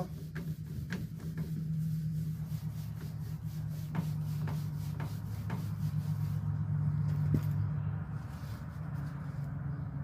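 Paper towel rubbing over a microwave's casing as it is wiped down with rubbing alcohol, with scattered light clicks and knocks, four of them about half a second apart midway. A steady low hum runs underneath until near the end.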